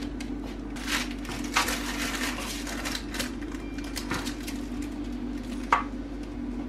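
Slotted plastic spatula scraping under baked cookies on parchment paper over a metal baking tray, with scattered scuffs and taps and one sharp tap near the end. A steady low hum runs underneath.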